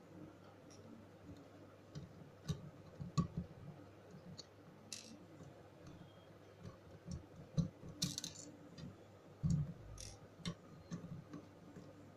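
Irregular small clicks and taps of a hard drive and its circuit board being handled and worked loose on a wooden table. There are a few duller knocks and a brief scrape past the middle.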